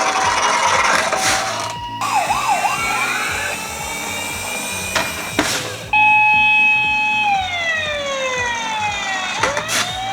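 Emergency sirens: a two-tone hi-lo siren, then a fast wailing siren, then a loud held siren tone that glides steadily downward as it winds down. Three whooshes cut across it.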